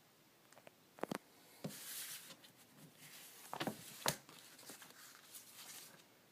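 Plastic LEGO pieces being handled: a quick pair of clicks about a second in, rustling and light clattering, and a sharp click about four seconds in.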